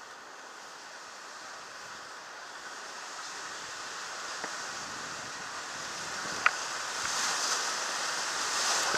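Whitewater rapid rushing, growing steadily louder as the raft runs into it, with one sharp knock about six and a half seconds in.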